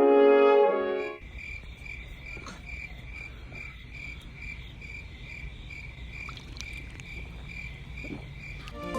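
Background music with brass cuts off about a second in. Then crickets chirp in a steady, even rhythm, a high pulse repeating two or three times a second, over a low rumble.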